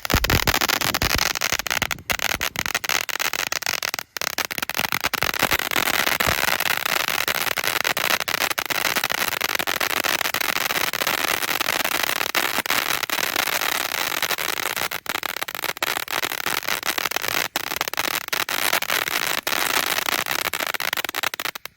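Two consumer fountain fireworks burning together, a steady hiss of sparks packed with rapid crackling pops, cutting off suddenly at the end.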